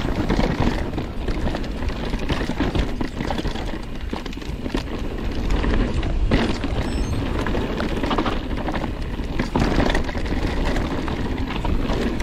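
Mountain bike rolling fast down a rocky dirt singletrack: a steady rush of knobby tyres on dirt, with frequent knocks and rattles from the bike as it hits rocks and bumps.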